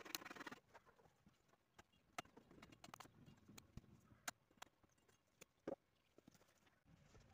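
A handsaw rasping through a wooden board stops about half a second in. After that come scattered sharp wooden knocks as boards are handled, stood on end and laid onto a wooden frame.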